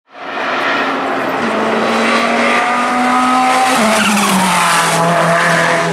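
Ferrari 488 GT3 race car's twin-turbo V8 running hard at racing speed. Its note climbs slowly, drops sharply just before four seconds in, then holds steady at a lower pitch.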